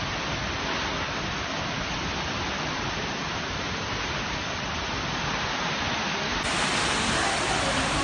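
Tropical storm wind blowing hard in a steady, even rush of noise, a little louder near the end.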